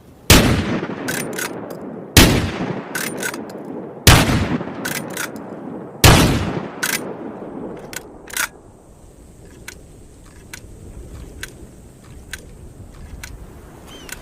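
Winchester Model 1887 lever-action shotgun firing four shots about two seconds apart, each shot followed by two quick clicks of the lever being worked. Then a string of lighter single clicks comes about once a second.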